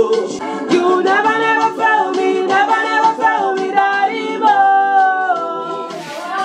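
Music: a worship song, one voice singing long, sliding notes with little or no backing.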